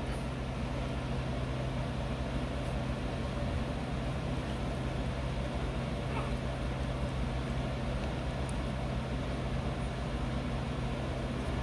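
Steady low hum with even background noise, like a running appliance or air conditioner; no clear sounds from the puppies.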